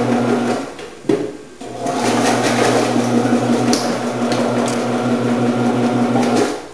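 Omcan HLC 300 commercial vegetable processor's electric motor running with its slicing and dicing discs, with the rattle of vegetables being cut. It stops shortly after the start, there is a click, and it starts again about two seconds in, running until just before the end.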